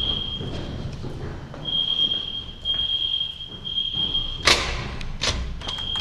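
Hotel fire alarm sounding a steady high beep in groups of three with a pause between groups, the temporal-three evacuation pattern. A loud thump about four and a half seconds in, followed by a softer knock.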